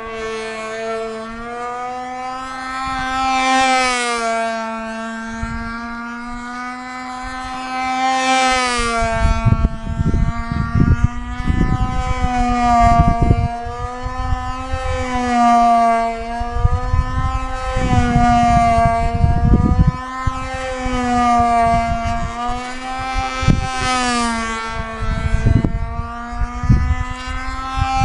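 O.S. LA .25 two-stroke glow engine on a control-line stunt model plane running flat out with a high buzzing whine, its pitch swelling up and falling back every few seconds as the plane circles the pilot. Gusts of wind rumble on the microphone from about a third of the way in.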